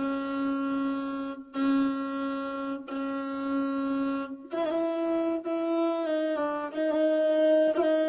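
Gusle, a single-string bowed folk instrument, playing a nasal, overtone-rich line: long held notes on one low pitch separated by short breaks, then about halfway through it moves up to a higher note and plays a quicker, ornamented phrase.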